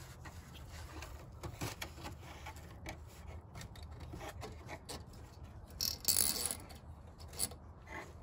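Hands working long plastic mounting pins through a transmission cooler and radiator: scattered light clicks and rubbing, with a louder scraping rustle about six seconds in.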